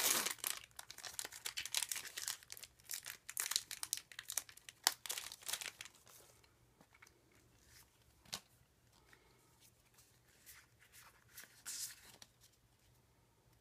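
Foil wrapper of a Pokémon TCG booster pack crinkling and tearing as it is opened, dense and crackly for about six seconds. After that come fainter, scattered clicks of the pulled cards being handled.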